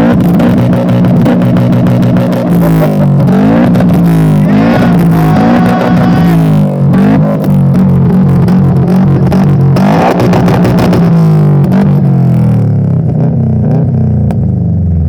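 A modified car's engine revved hard and repeatedly at high rpm, very loud. Its pitch sweeps up and down over and over, then settles lower near the end.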